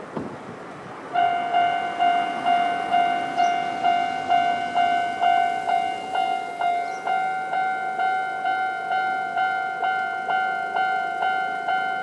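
Japanese level-crossing warning bell, the old-type electronic alarm, starting about a second in and repeating a ringing tone about twice a second. It signals that a train is approaching the crossing.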